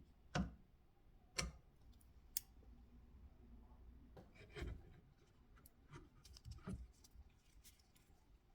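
Scattered light clicks and knocks of small tools and parts being handled, the two loudest within the first second and a half.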